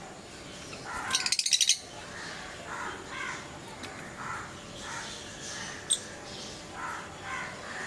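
Pet lovebirds calling: a loud, rapid run of about ten shrill chattering notes about a second in, then softer short chirps repeating every half second or so, and a single sharp click near the end.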